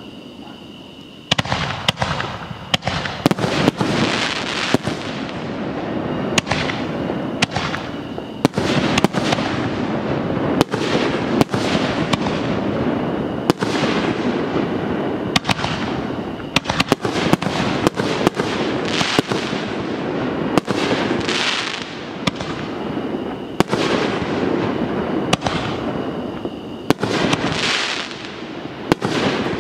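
Consumer fireworks going off in a dense, continuous barrage: many sharp bangs and reports over steady crackling, starting about a second and a half in, with a brief lull just after twenty seconds and again near the end.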